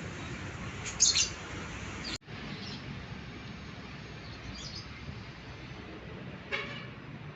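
Yellow lovebird giving short, sharp chirps: a loud burst of chirps about a second in, then a few fainter single chirps a couple of seconds apart, over a steady background hiss.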